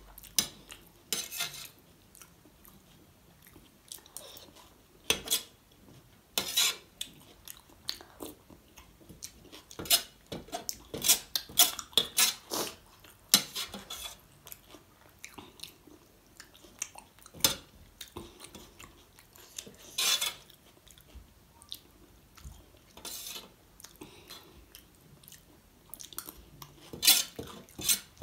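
Steel spoon clinking and scraping against a stainless-steel plate as chickpea curry is scooped up, in irregular sharp clinks, with close-up chewing between them.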